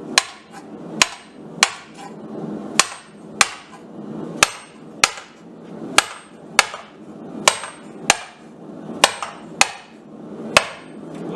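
Hand hammer striking steel on an anvil in forging blows, about fourteen strikes at an uneven pace of one to two a second. Each strike has a short, bright metallic ring, over a steady rushing noise underneath.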